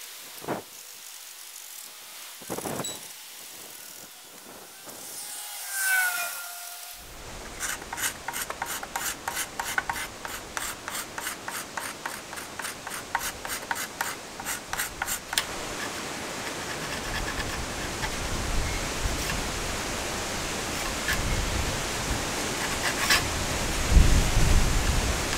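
Flat metal blade scraping the wooden rim of an old wagon wheel in quick, even strokes, about four a second, for several seconds. This gives way to a steady rushing noise that grows louder, with a low rumble near the end.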